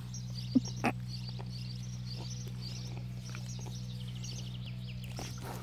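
Small birds chirping over and over above a steady low hum, with two sharp knocks about half a second and one second in.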